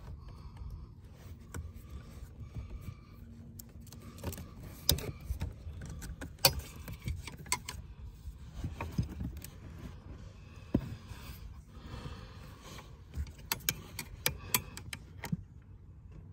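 Scattered clicks, taps and light metallic clinks of hands and a screwdriver working at the wiring connectors and motor under a power car seat, over a steady low rumble.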